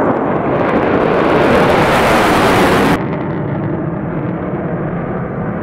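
Loud jet-engine noise from fighter jets flying past, a steady rushing sound. About three seconds in it cuts abruptly to a duller, slightly quieter stretch of jet noise.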